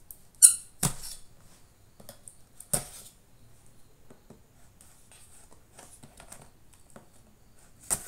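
Kitchen knife slitting the packing tape along the edge of a cardboard box: a short squeaky scrape about half a second in, then two sharp clicks and light scratching of the blade against the cardboard.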